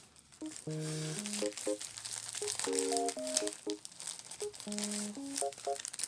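Plastic mailer bag and cellophane packaging crinkling as a parcel is opened by hand, with a flurry of fine crackles. Soft background music of keyboard chords plays alongside.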